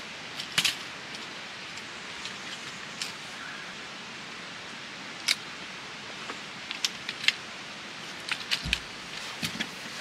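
Folding camp cot being assembled: sharp clicks and clacks as its legs are levered onto the frame, scattered through and bunched near the end, with one dull thump near the end. A steady hiss runs underneath.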